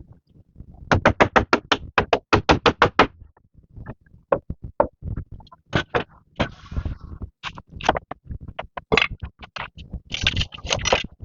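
Repeated sharp tool strikes on building material, in quick runs of several blows about five a second, with a short scraping noise about midway.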